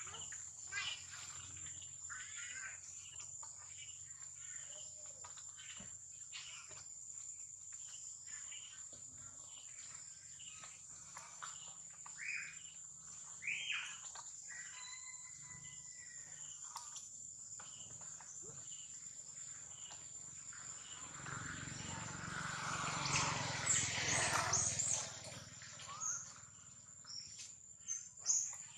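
Steady high-pitched insect drone with scattered short chirps and calls. Past the middle a louder mix of noise and sharp squeals swells for about four seconds, then fades.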